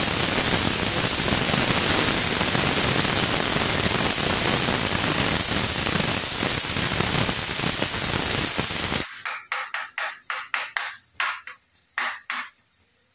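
Pressure cooker whistle venting steam: a loud, steady hiss that cuts off suddenly about nine seconds in, followed by a few light clicks and taps.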